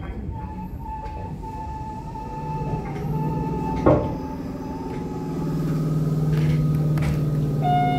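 Electric commuter train running slowly, heard from inside the front of the car: a thin steady whine through the first half, a low steady hum that comes in about two and a half seconds in and grows louder, and one sharp clack just before the middle.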